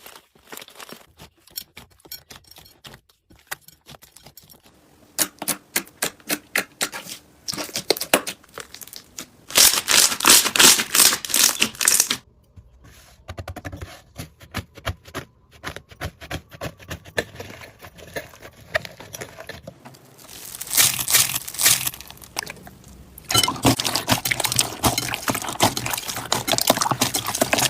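Slime being squeezed and pressed by hand: dense runs of sticky crackles, pops and crunches that change abruptly several times as one clip gives way to the next.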